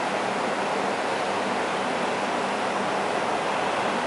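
Steady fizzing rush of aquarium air stones bubbling, with a faint low hum underneath.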